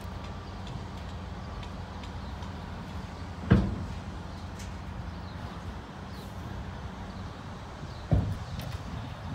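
Dump truck engine running steadily with its emptied bed raised, and two loud metal bangs from the tipper body, one about three and a half seconds in and another near the end.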